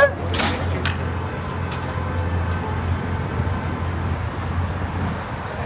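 A few sharp clacks of hockey sticks striking during play in the first second, over a steady low hum.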